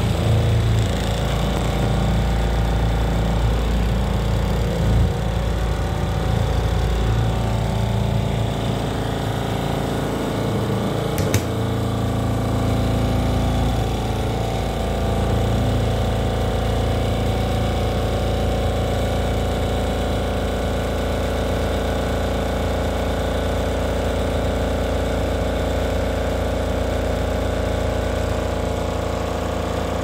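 Compact twin-tub portable washing machine running a very loud, unbalanced spin, thrown off balance by a cup and a detergent cap inside; a steady dense mechanical noise with one sharp knock about eleven seconds in.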